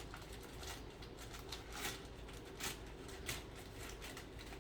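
A small plastic package bag being handled and opened, crinkling and rustling in a handful of short bursts.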